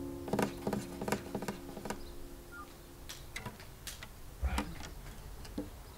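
The final chord of an acoustic guitar fading out, while the guitar is handled and moved, making a string of light clicks and knocks. A dull thump about four and a half seconds in is the loudest sound.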